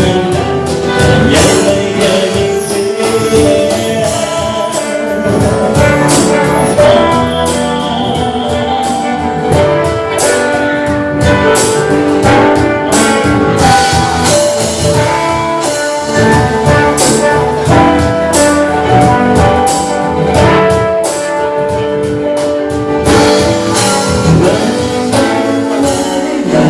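Live band music: a trumpet carrying sustained melody lines over guitar and a steady tambourine-like percussion beat, with a singer coming in at times.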